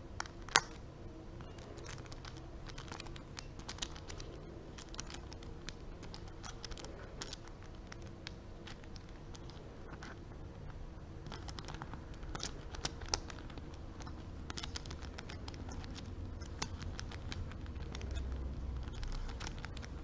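Small travel dominoes being handled and set down, a long run of light, irregular clicks and taps as the tiles knock together, with one sharper click about half a second in.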